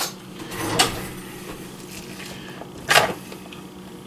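Kitchen handling noises from a plastic leftovers container being picked up and opened: a short click, a scrape about half a second in, and a sharp clack about three seconds in, over a faint steady hum.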